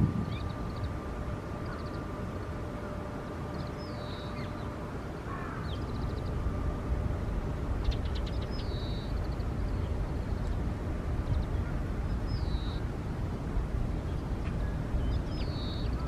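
Eurasian tree sparrows chirping in short, high calls a few seconds apart, mixed with a few brief rapid trills. A steady low outdoor rumble runs underneath, and a faint steady hum is heard through the first part.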